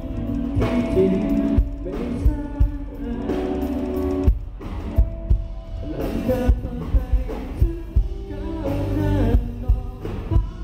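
Live rock band playing through a PA: a male singer's vocals over electric guitar, bass guitar and drum-kit hits.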